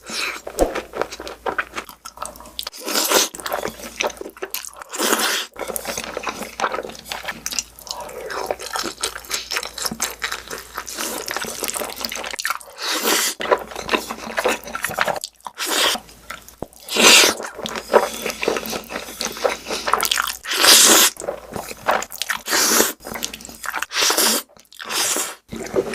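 Close-miked eating: crunching bites and wet, sticky chewing one after another, with several louder crunches along the way.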